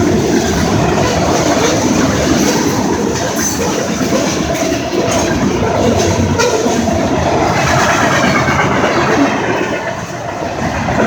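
CSX freight train's cars rolling past at speed: a loud, steady rumble and rattle of steel wheels on the rails, with a few sharp clacks in the middle.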